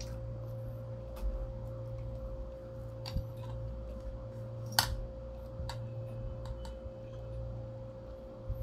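Quiet eating sounds: scattered small clicks and smacks from chewing, and a fork on a china plate scooping noodles, the sharpest about five seconds in. Under them runs a steady low electrical hum.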